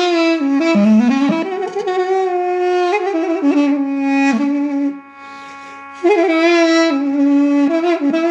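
Armenian duduk, a double-reed woodwind, playing a slow melody of long held notes with quick ornamental turns and pitch bends. About five seconds in, the sound drops away to a faint level for about a second, then the duduk comes back in on a new note.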